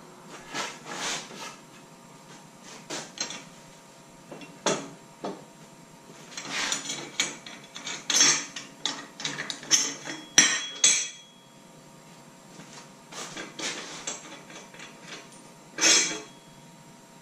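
Aluminum square tube being handled and worked by hand on a wooden bench: irregular knocks, taps and scraping strokes, busiest in the middle, with one last loud scrape near the end.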